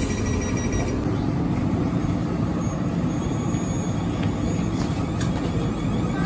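A steady low vehicle rumble at an even level.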